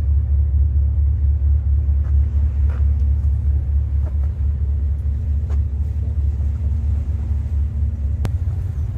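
A boat's engine running with a steady low rumble and a faint steady hum, with a sharp click about eight seconds in.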